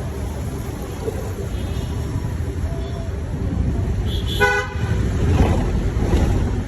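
Steady low engine and road rumble of a vehicle in traffic, with one short horn toot about four and a half seconds in.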